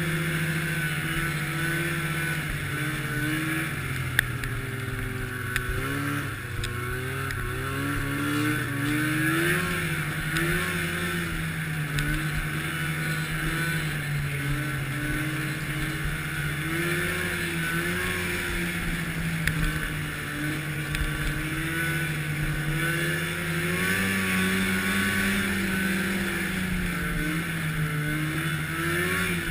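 Arctic Cat snowmobile engine running under way, its pitch rising and falling gently with the throttle over a steady hiss, with a few brief knocks.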